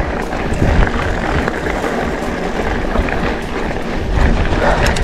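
Mountain bike tyres rolling over a loose gravel road: a steady rumble and crunch with scattered rattles, and a few sharper clicks near the end, mixed with wind buffeting the handlebar-mounted camera's microphone.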